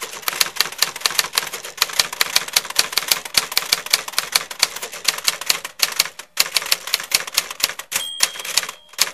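Typewriter keys clattering in a fast, uneven run of keystrokes, several a second, with a short break about six seconds in. A single bell-like ding rings out near the end.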